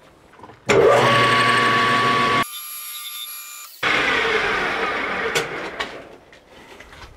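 Metal lathe running with a steady mechanical whine, spinning a four-jaw chuck. It starts up under a second in, drops out abruptly about two and a half seconds in, comes back a second later, then fades away near the end.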